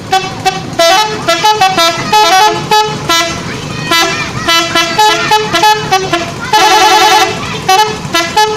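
Multi-tone telolet horn playing a quick tune: a rapid run of short toots at several different pitches, with one longer held, warbling chord about three-quarters of the way through.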